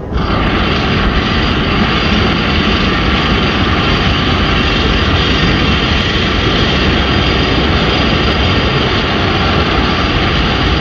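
A loud, steady engine-like roar, a film sound effect, that starts abruptly and holds even without changing pitch.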